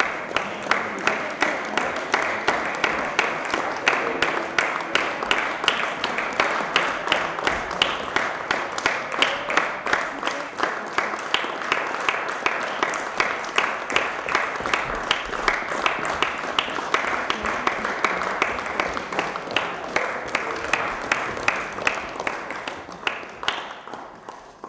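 Theatre audience applauding, clapping together in a steady rhythm of about two to three claps a second, fading out near the end.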